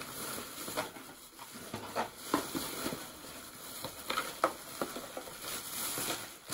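Rummaging through a shopping bag of purchases: irregular rustling and crinkling of bags and plastic packaging, with scattered small knocks and clicks.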